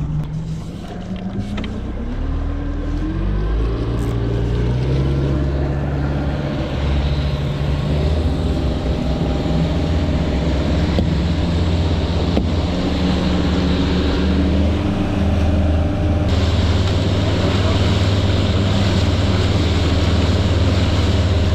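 Outboard motor throttling up over the first few seconds, its note rising, then running steady at speed. Water rushes along the hull.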